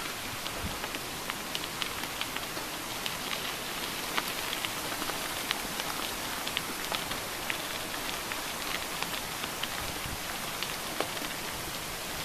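Mountain bike tyres rolling over a gravel road: a steady crunching hiss scattered with irregular small clicks of stones.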